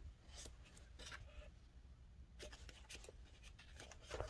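Faint, scattered rustling and light taps of paper and card being handled.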